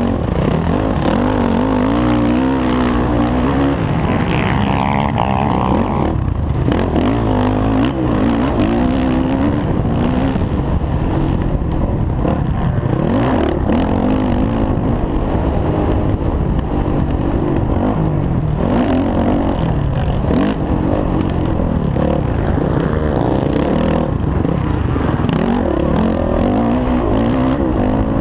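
Four-stroke dirt bike engine racing hard, revving up and down over and over as the rider opens and closes the throttle through the gears and turns.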